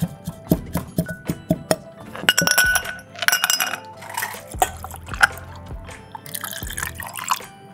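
A bar spoon muddling mint in a tall glass, making a quick run of sharp clinks against the glass. About two seconds in, ice cubes clatter into the glass, and near the end liquid is poured over the ice, with background music underneath.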